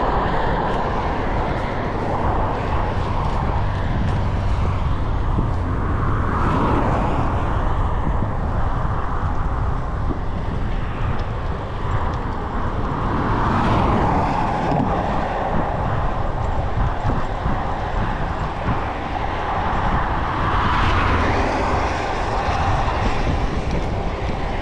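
Steady rush of wind on the microphone and road noise from a bicycle riding a highway shoulder. Motor traffic passing in the next lane swells up a few times, about six, thirteen and twenty-one seconds in.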